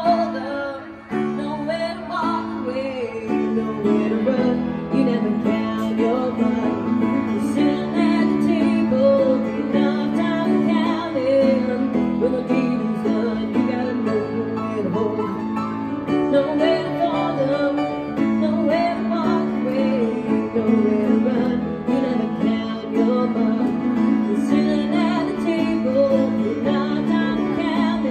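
Grand piano played live, chords and melody, with a woman singing along into a microphone.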